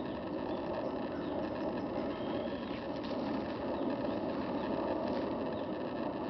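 Steady outdoor background noise, an even low rumble, with a few faint high chirps near the middle.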